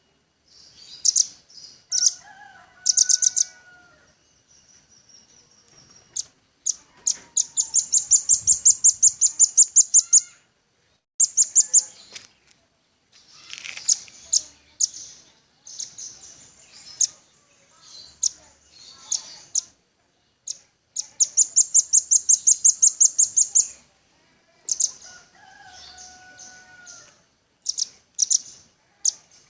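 Velvet-fronted nuthatch calling: sharp high chips and fast rattling trills of rapidly repeated notes, two of them lasting about three seconds each.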